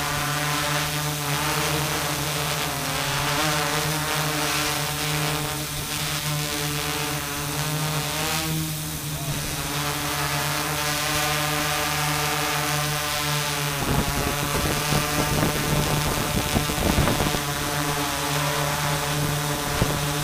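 Hobby multirotor drone's electric motors and propellers running with a steady buzz, heard from its on-board camera; the pitch shifts slightly as it hovers. About two-thirds of the way in, a gusty low rumble joins as the drone climbs.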